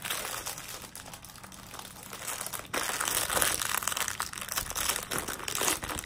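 Thin plastic bag crinkling as a hand rummages in it for gumdrop candies, louder from about three seconds in.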